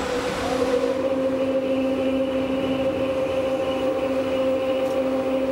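Rhaetian Railway electric train running on the Bernina line: a steady whine over rolling wheel-on-rail noise, with a lower tone joining about half a second in.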